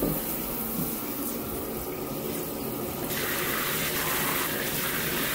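Handheld shower head spraying water onto a tiled shower floor and into an open linear channel drain, a steady rushing hiss. About three seconds in the spray gets louder and hissier.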